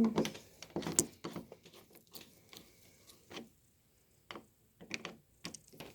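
Scattered light clicks and taps of metal deadbolt hardware being handled and adjusted, the sharpest about a second in, with a short quiet pause in the middle.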